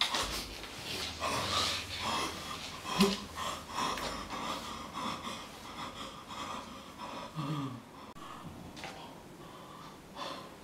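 A man breathing hard in short, ragged gasps, about two breaths a second, growing fainter toward the end.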